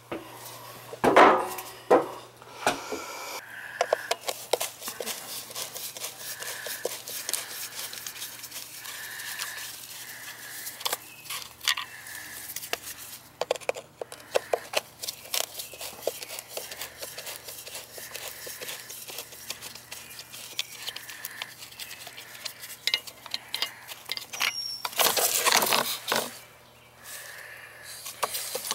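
Metal hand tools clicking and clinking: a socket on an extension being worked against a brass outside sill faucet's fittings, in many short irregular clicks. A brief rustling burst near the end as the shrubs are brushed.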